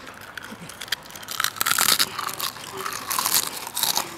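Potato chips crunching and crackling as they are handled and broken, with a dense run of crisp crackles from about a second and a half in.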